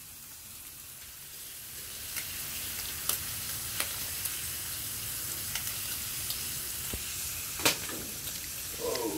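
Bacon sizzling on a barbecue: a steady frying hiss that grows a little louder over the first two seconds, broken by a few sharp pops or clicks, the loudest near the end.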